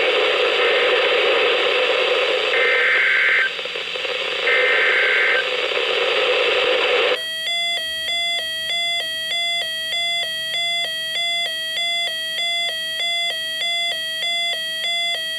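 Weather radio broadcast hiss with two one-second bursts of SAME alert data tones, a second apart. Then, from about seven seconds in, a weather radio receiver's electronic alert alarm alternates between two pitches about one and a half times a second, triggered by a new warning.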